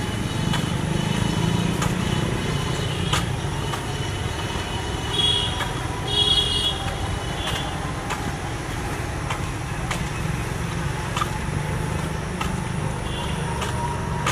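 Steady low outdoor background rumble, with a few short high chirps about five and six seconds in.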